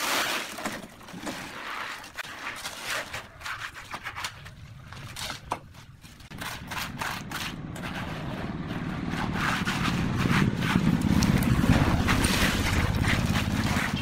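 A hand trowel scraping and tapping on wet concrete. Over the second half, a low rumble from a loaded wheelbarrow of concrete being rolled in builds up and stops sharply at the end.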